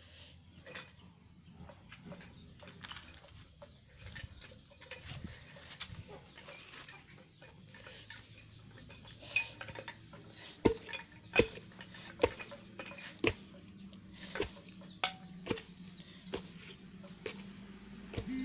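Wooden pestle pounding white rice dough for khanom chin noodles in a plastic bucket: sharp knocks about once a second, starting about halfway through. Steady insect chirring runs underneath.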